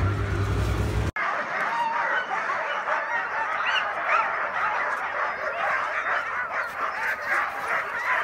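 A team of harnessed sled dogs yelping, whining and howling all at once in an overlapping chorus, the excited clamour of dogs eager to run as they wait to start. It sets in about a second in.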